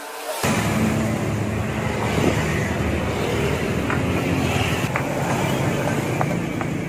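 Steady street traffic noise: a low engine rumble under a constant hiss, starting abruptly about half a second in, with a few faint ticks.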